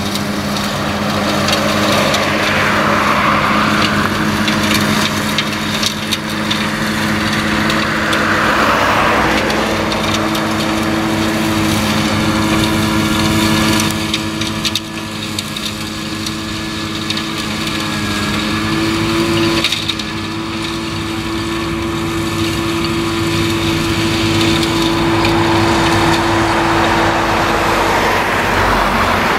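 Tractor engine running steadily under load while driving a rear-mounted flail mulcher that whirs and chops through tall grass and weeds. The engine's pitch steps up slightly about two-thirds of the way through.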